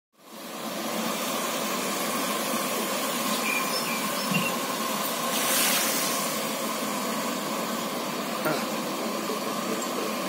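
Steady hissing roar with a faint high whine from the burner fire under a large aluminium cooking pot, with a small knock or two.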